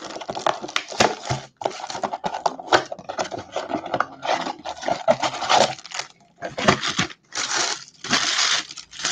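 Clear plastic shrink-wrap being torn off a cardboard trading-card blaster box and crinkled in the hands, in irregular crackling bursts. Louder rustling comes near the end as the box is opened and its card packs are taken out.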